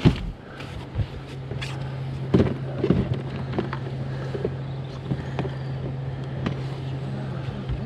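Scattered knocks, clicks and rattles of gear being handled, as someone rummages in a tackle box on a boat for a fish measure. A steady low hum runs under them and stops at the very end.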